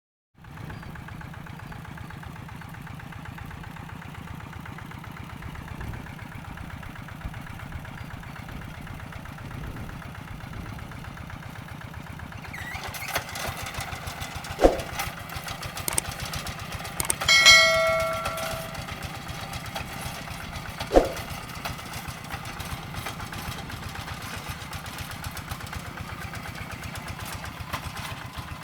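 Hand tractor's single-cylinder diesel engine running with an even low chugging. It grows louder and rougher about halfway through, as if under plowing load. A couple of sharp knocks and a brief metallic ringing tone cut through it.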